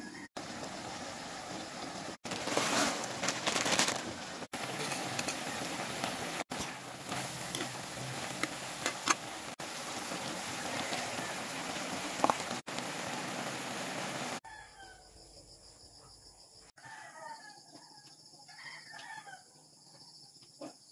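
Vegetables and pancit canton noodles sizzling in a wok, broken by several abrupt cuts. About fourteen seconds in, the sizzling stops and a rooster crows faintly a few times in the background.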